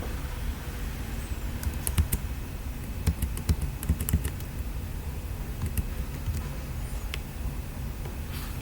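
Scattered light clicks and taps, several close together about two to four seconds in and a few more later, over a low steady hum.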